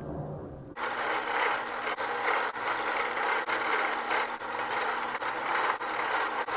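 An electric power tool working maple, starting abruptly about a second in: loud rasping noise over a steady motor hum, the hum dropping out about five seconds in while the rasping goes on.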